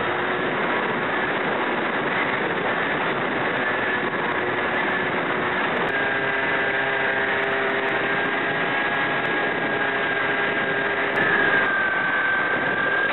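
HobbyKing Bixler RC plane's electric motor and pusher propeller whining steadily over rushing wind, as heard from a camera on the plane's nose. The pitch shifts about halfway through and again near the end, where it briefly gets louder, as the throttle changes.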